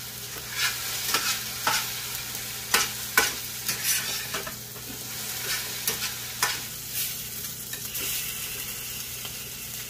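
Metal spatula scraping and clacking against a frying pan as okra and potatoes are stirred, over a steady sizzle of frying. The sharp strokes come irregularly for about the first seven seconds, and after that only the sizzle goes on.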